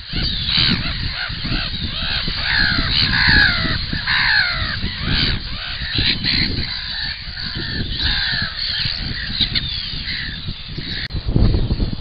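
Seabird colony calling: many overlapping harsh, short calls that rise and fall in pitch, over a low rumble. About eleven seconds in, the calls thin out and the low rumble grows louder.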